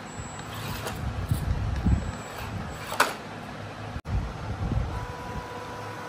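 Small electric motor and gearbox of a scale RC off-road truck running in uneven surges, with a sharp click about three seconds in and a steady whine near the end.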